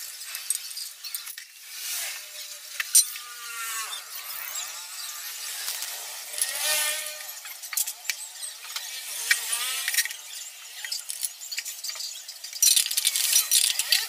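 Metal clinks, clicks and squeaky scrapes of hand tools and aluminium engine-case parts being handled during scooter engine reassembly, with a denser run of clatter near the end as the CVT cover is fitted.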